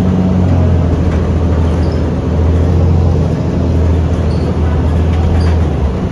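Cabin of a 2008 New Flyer D40LF diesel transit bus under way: the engine's steady low drone with road noise, easing off a little near the end.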